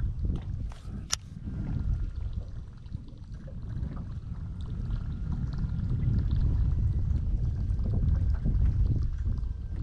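Wind buffeting the microphone, a low rumbling that grows stronger toward the end, with a single sharp click about a second in.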